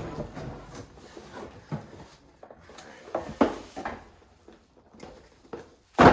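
Scattered knocks and clunks of metal smoker parts being handled, with the loudest knock right at the end.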